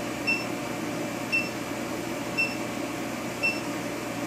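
Induction heater running while heating a small part in its coil: a steady hiss with a short, high beep repeating about once a second.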